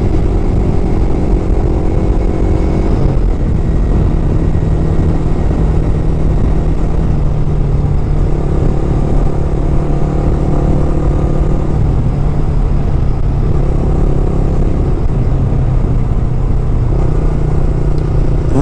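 Yamaha R15's single-cylinder engine running steadily while the bike is ridden, its pitch shifting slightly a few times, over a heavy low wind rumble on the bike-mounted microphone.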